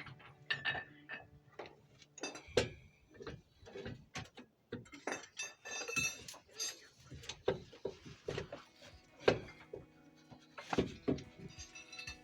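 Metal hand tools and brake or hub parts clinking and knocking against each other in an irregular series of sharp strikes, the loudest about nine seconds in.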